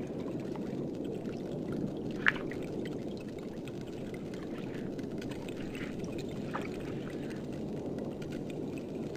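Steady low underwater wash of water noise, broken about two seconds in by one sharp snap from a pistol shrimp's claw, with a fainter snap later and scattered faint clicks.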